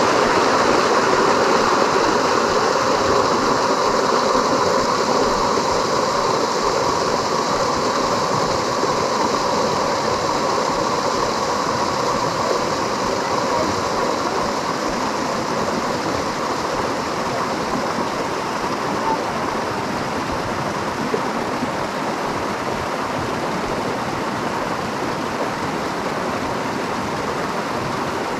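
Steady rush of mountain water tumbling over rocks, growing slowly a little quieter.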